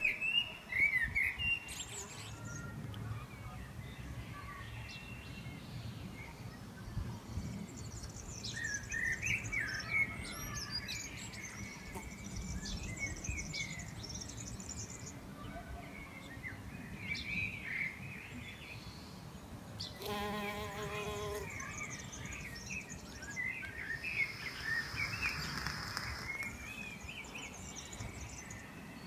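Songbirds chirping and singing at intervals over a low steady background rumble, with a short buzzy pitched sound about two-thirds of the way through.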